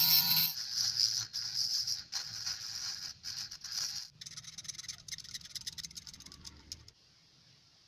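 A mini rotary tool with a cutting disc cuts into a small piece of gas-lighter plastic and stops about half a second in. Then a needle-pointed hand tool scrapes and picks at the tiny plastic part in irregular strokes, quickening into light ticks, until it stops about seven seconds in.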